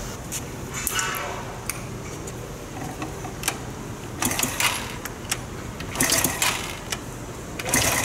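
Small single-cylinder four-stroke engine of a SYM Wolf 125 motorcycle running at idle with a fast, even ticking beat, with a few short louder surges about four seconds in, about six seconds in and near the end.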